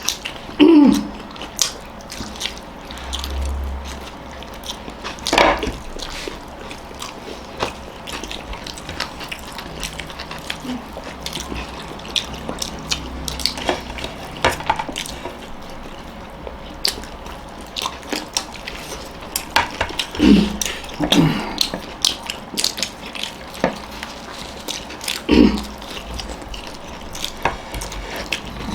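Eating sounds: chewing and biting into a burger and grilled chicken, with many small wet clicks and smacks. There are a few low thumps and several brief muffled vocal sounds.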